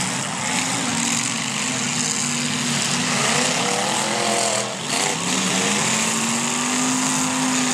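Demolition derby car engines running loudly in the arena. The engine pitch wavers in the middle, then climbs as one is revved and drops again at the very end.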